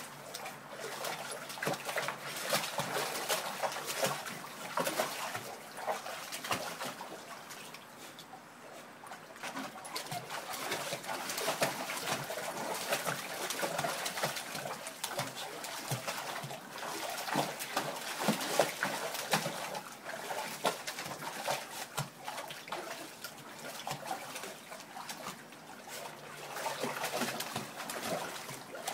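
Water splashing and sloshing in a plastic kiddie pool as two small dogs wade and play in it, in irregular bursts with no steady rhythm.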